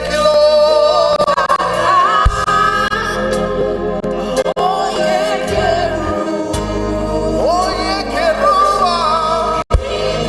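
Live gospel worship music: voices singing over sustained accompaniment with a steady low bass, the sound cutting out for a split second near the end.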